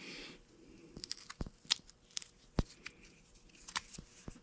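Small rubber-and-plastic hole covers handled and pulled apart: a brief soft rustle, then about half a dozen light, sharp clicks and snaps at uneven intervals.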